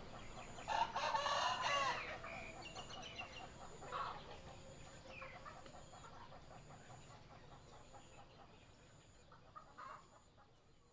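Chickens in the open: a rooster crows about a second in, with shorter clucks and calls now and then and a faint high chirp repeating about once a second, the whole sound fading out toward the end.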